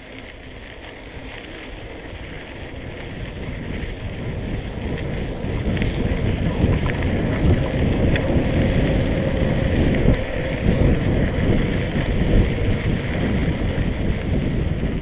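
Wind buffeting the microphone of a handlebar-view action camera on a moving electric bicycle, with tyre rumble on a packed-gravel path. It grows steadily louder over the first several seconds, then holds at a rough, gusty level.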